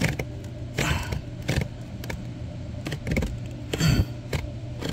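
A dirty BMW 528i cabin air filter being pulled out of its housing under the passenger footwell: its frame scrapes and rustles against the housing in several short bursts, over a steady low hum.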